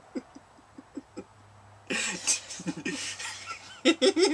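A woman stifling giggles, with short muffled snickers coming every fraction of a second. About two seconds in she breaks into breathy laughter.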